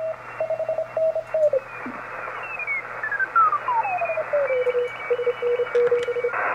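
Shortwave receiver audio from a Kenwood TS-180S being tuned with an external VFO dial through the 20-metre CW band: band hiss with Morse code tones keyed on and off. About halfway through, one signal's whistle slides steadily down from high to low pitch as the dial is turned, and settles into a lower keyed tone near the end.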